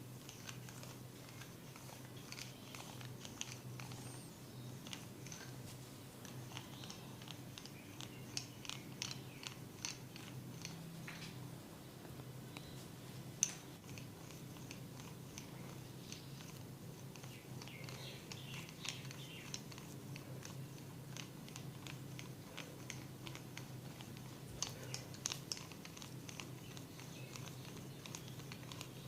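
Hair crackling under a barber's fingers during a head massage: dense runs of small sharp clicks and crunches, with one louder snap near the middle, over a steady low hum.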